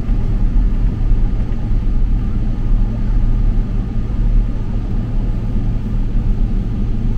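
Steady low rumble inside an airliner cabin as the jet taxis onto the runway, with a faint steady whine above it.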